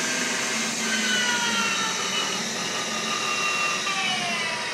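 Harrison Alpha 550 CNC lathe's spindle and 15 hp drive running at high speed, with several whining tones gliding down in pitch as the spindle slows down.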